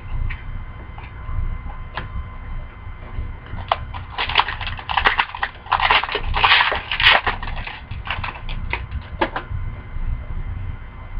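Crinkly wrapper of a trading-card pack crackling as it is handled and opened. There are a few single clicks, then a dense run of crackles from about four seconds in that stops near the end, over a steady low hum.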